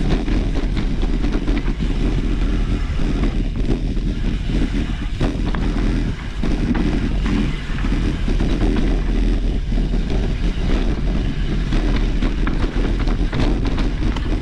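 Wind rumbling on the microphone of a mountain bike ridden along a trail, with scattered rattles and knocks from the bike over rough ground.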